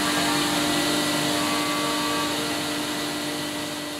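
Edge banding machine running, a steady motor hum and whir that eases off slightly toward the end.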